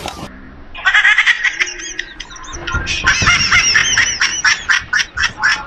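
A dog squealing and yelping in fright, trapped under a cardboard box: high-pitched cries that start about a second in and run into a fast string of short yelps from about three seconds in.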